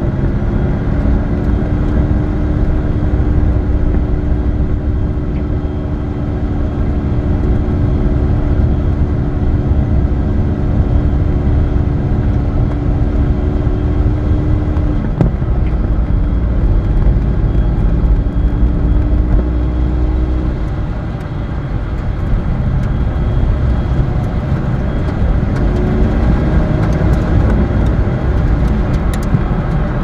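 Car engine running with heavy tyre and road rumble, heard through an in-car dashboard camera. The engine's steady note drops away about halfway through and again around two-thirds of the way, picking up again near the end.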